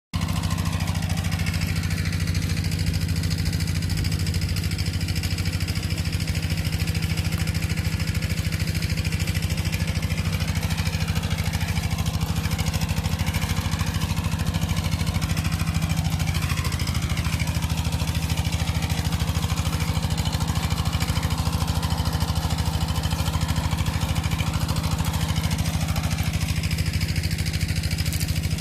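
An engine running steadily at an unchanging speed, with wavering higher tones over it from about ten seconds in until near the end.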